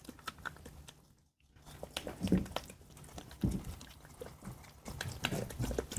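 A puppy scrambling about, making scattered light clicks and taps with a few soft thumps.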